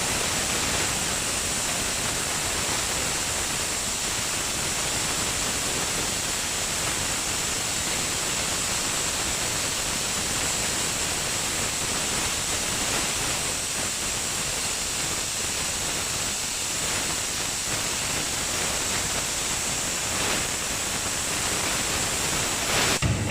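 CNC pipe profile cutting machine's torch cutting through a pipe: a steady hissing rush with a thin high whine over it, stopping abruptly near the end and leaving a low hum.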